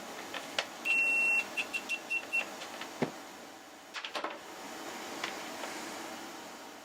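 Multimeter continuity beeper sounding as it tests a cable: one steady beep of about half a second, then five short beeps at the same high pitch, each beep meaning a closed circuit through the conductor under test. A few sharp clicks follow, from the probes and handling.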